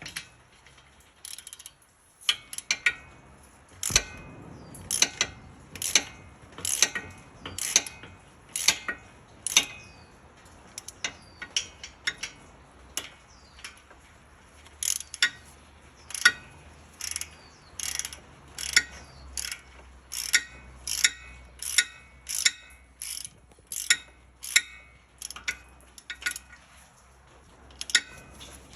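Knocking from a 2019 Toyota RAV4's brakes: sharp metallic clicks about once a second in a steady rhythm, some doubled. It is the sign of brake bolts left only finger-tight after a brake job.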